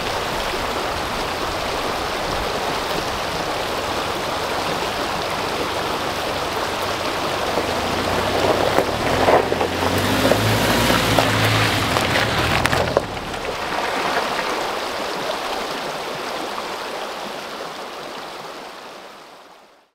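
A steady rushing noise, joined by the low hum of a Toyota Tacoma pickup's engine as it drives up a gravel road, loudest about halfway through and cutting off suddenly; the rushing then fades out.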